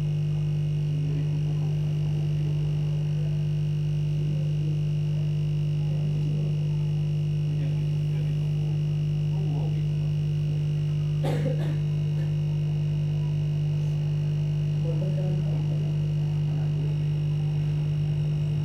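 Steady electrical mains hum with a few overtones, and a single sharp click about eleven seconds in.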